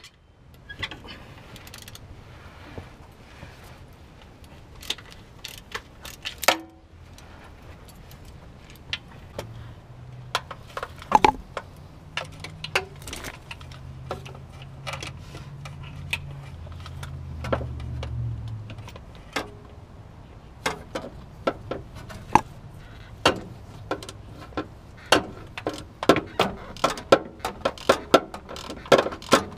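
Hand ratchet clicking in short runs and tools clinking against metal while bolts are worked loose under the car; the clicks come thick and fast near the end. A low hum sounds in the background for several seconds midway.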